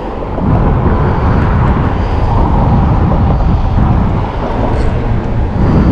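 Strong wind buffeting the microphone, a loud, steady low rush.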